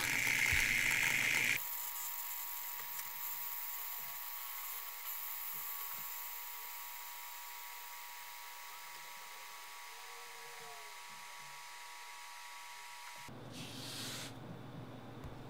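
Fidget spinner with a degreased zirconium oxide ceramic ball bearing, flicked by hand and spinning freely on a table. A loud rush lasts about the first second and a half, then it settles into a steady whir with a few fixed tones that slowly fades. Near the end the whir gives way to louder noise.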